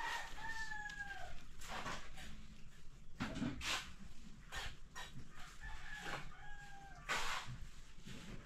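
A rooster crows twice, each crow a little over a second long and falling slightly at the end: once right at the start, once about six seconds in. Several sharp knocks sound in between.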